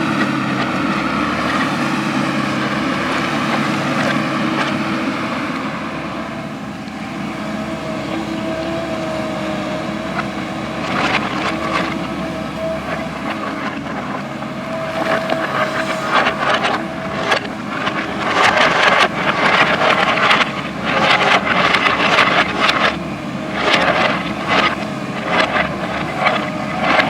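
JCB backhoe loader at work: its diesel engine runs with a steady whining tone through the middle, then a run of sharp knocks and scrapes in the last third as the bucket digs into soil and rock.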